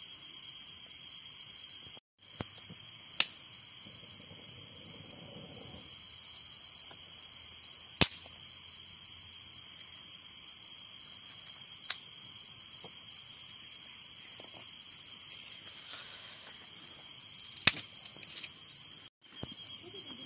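A steady chorus of crickets chirring, with a few sharp cracks scattered through it, the loudest about 8 s and 17.5 s in. The sound drops out completely for a moment twice, about 2 s in and near the end.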